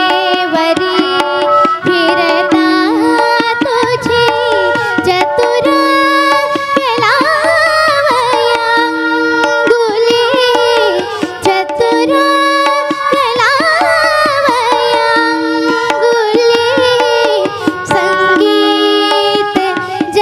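Indian devotional music: tabla strokes under a held drone note, with a melody line that bends and glides in ornaments.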